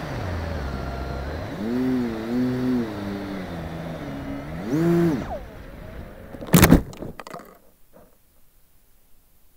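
Reptile Dragon FPV plane's electric motors and propellers whining, the pitch rising and falling several times with throttle changes over steady wind noise. About six and a half seconds in comes a loud crash and crackle as the plane lands in tall grass. After that the motors are silent.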